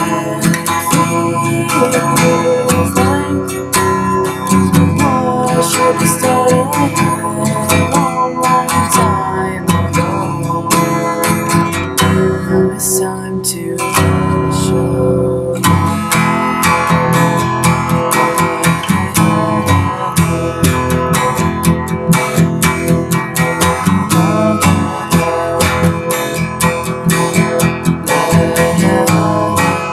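Acoustic guitar being strummed, chords played on without a break, with a softer passage near the middle.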